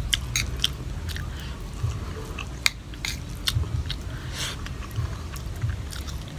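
Close chewing of a mouthful of rice, with scattered light clicks of a metal spoon against a china plate.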